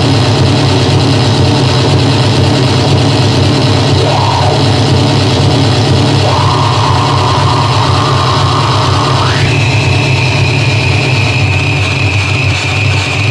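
Loud harsh electronic noise from an analogue synthesizer run through distortion and a Sherman Filterbank 2: a dense hiss over a steady low drone. A filtered tone blips up and down about four seconds in, holds at a middle pitch from about six seconds, then slides up to a higher held pitch near ten seconds.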